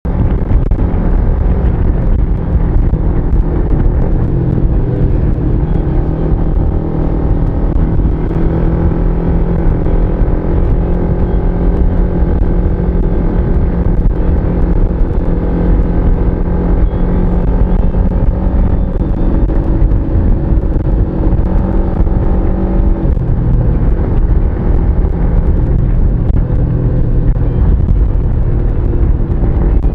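Motorcycle engine running steadily at road speed, with heavy low wind and road rumble on the bike-mounted microphone. About 23 seconds in, the engine note drops to a lower pitch.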